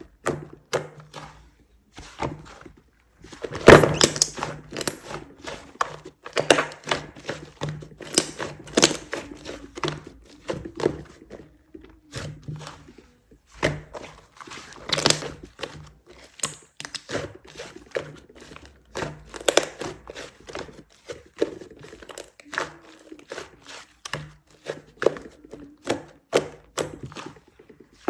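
Hands squishing, pressing and poking an Oreo-style clay slime, making irregular sticky clicks and pops, the loudest about four seconds in.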